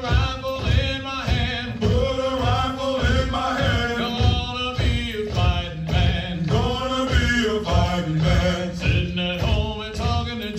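Men chanting a Marine Corps marching cadence together over a steady low beat.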